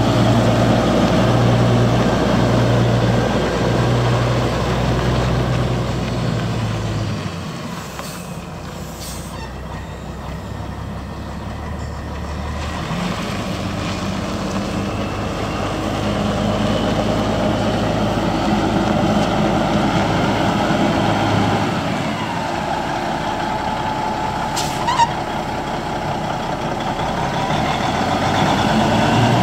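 Caterpillar 3406B inline-six turbo diesel of a 1987 Peterbilt 379 semi tractor pulling away slowly. Its note fades as the truck moves off and grows louder again as it comes back. A brief sharp sound is heard about 25 seconds in.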